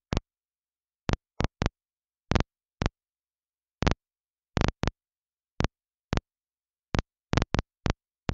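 Air traffic control radio scanner feed between transmissions: about fifteen short bursts of static at irregular intervals, each a brief click as the squelch opens and shuts, with dead silence between.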